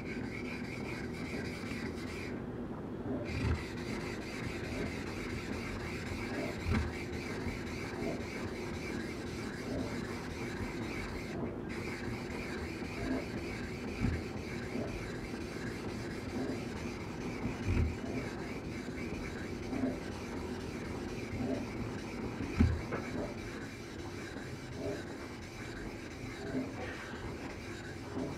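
Steady wet gritty rubbing of an object stroked back and forth on a white waterstone during sharpening, with a few dull knocks now and then.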